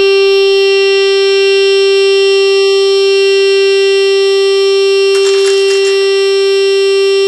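A loudspeaker driven by a homemade amplifier and microcontroller tone generator blares a loud, steady, buzzy single tone through a pipe. About five seconds in, a drinking glass shatters with a brief crash of breaking glass while the tone keeps going.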